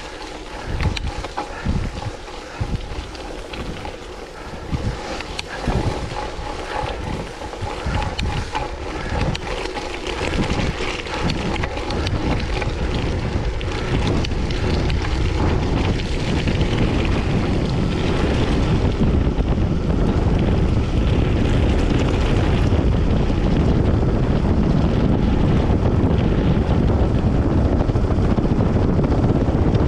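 Wind rushing over the microphone of a cyclist's camera while riding. Irregular knocks and rattles come through in the first dozen seconds, then the wind grows into a loud, steady rush that drowns them out.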